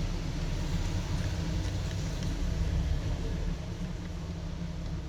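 Steady low rumble with a faint hiss of background noise.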